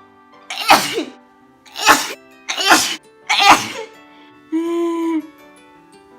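A woman sneezing four times in quick succession, set off by tickling her nose with a twisted tissue spill (kovori). A short held voiced sound follows, over faint background music.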